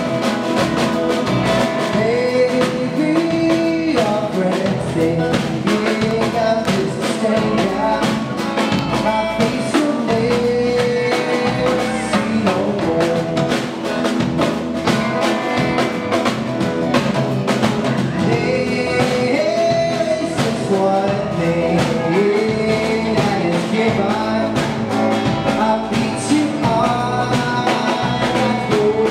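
Live band playing: drum kit, electric and acoustic guitars and bass guitar, with a male lead vocal singing over them.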